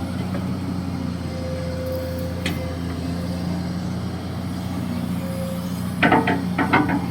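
Hydraulic excavator's diesel engine running steadily with a low hum, with a single click about two and a half seconds in and a quick run of sharp metallic knocks near the end.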